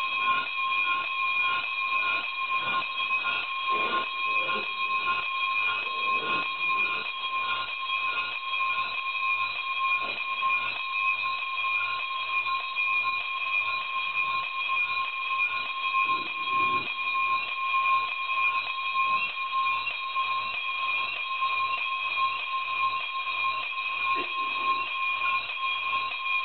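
Bells ringing without a break, a bright, steady metallic ringing with a rhythmic pulse of strokes about twice a second.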